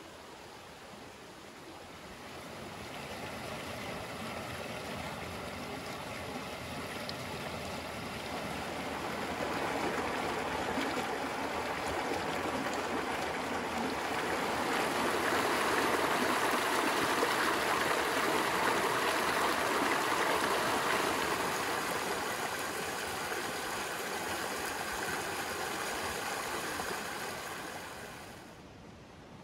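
Creek water rushing over rocks in a small rapid. The sound swells gradually, is loudest in the middle, and drops away near the end.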